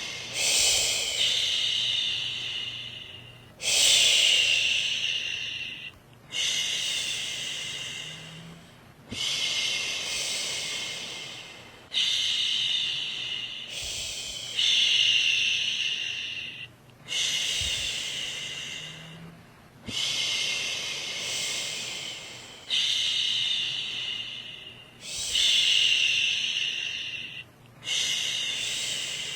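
A woman shushing, making long "shhh" sounds over and over, one about every two and a half seconds, each starting strong and fading before the next: a lulling sound to settle a baby to sleep.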